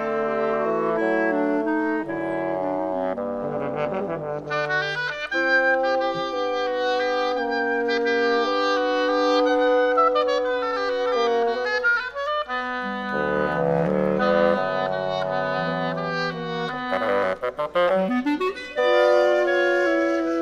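Woodwind quintet of flute, oboe, clarinet, bassoon and French horn playing together, several lines moving at once in held notes and quick runs.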